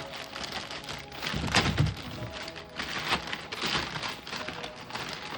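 Irregular knocks and clicks of a washing machine gearbox being handled, with a dull thud about a second and a half in. Background music plays underneath.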